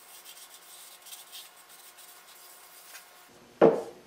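Soft, scratchy rubbing of a cloth wiping oil over a faceted mahogany wood block. A little over three and a half seconds in, a single sharp wooden knock as the block is set down on the wooden workbench.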